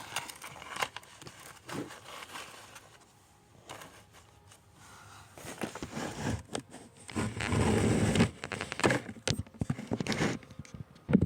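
Close handling noise from slime and its plastic containers being picked up and worked by hand: scattered clicks, scrapes and crackling, getting louder and busier about two-thirds of the way in.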